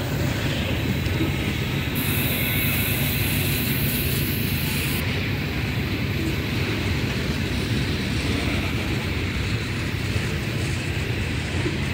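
Loaded coal hopper cars of a unit coal train rolling past, a steady rumble of steel wheels on rail. About two seconds in, a high hiss joins for a few seconds.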